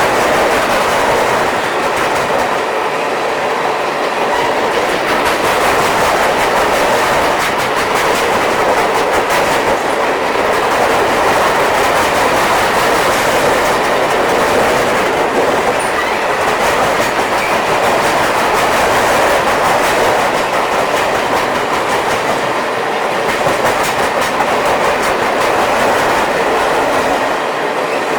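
Freight cars of a long mixed manifest train rolling past, a steady loud rumble and rattle with rapid clicking of wheels over the rails.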